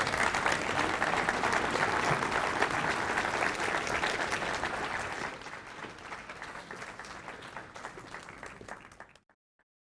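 Audience applauding, with many hands clapping. The applause is strong at first, dies down from about five seconds in, and cuts off abruptly near the end.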